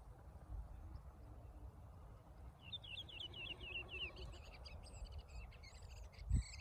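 Small bird singing: a quick run of about a dozen high chirps starts about two and a half seconds in, followed by looser, more varied chirping. A low rumble runs underneath, with a short thump near the end.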